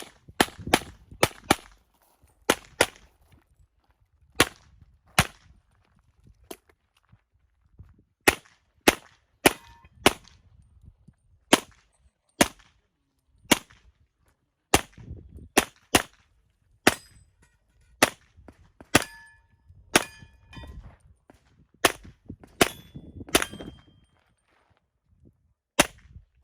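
A string of handgun shots, often fired in quick pairs, during a practical-shooting stage. Some are followed by a short metallic ring from steel targets being hit.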